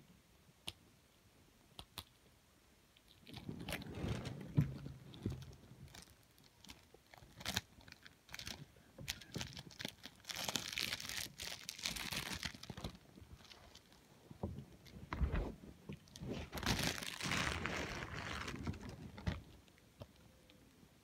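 A DVD set's packaging being crinkled and torn open by hand, with sharp clicks and handling knocks, in several bursts that start a few seconds in and stop shortly before the end.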